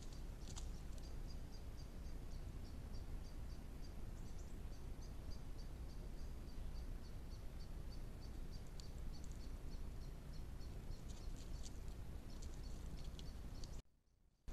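Trail camera's own recording of the bush: a steady low hum and hiss, with rapid high chirps repeating through much of it. The sound cuts out briefly near the end.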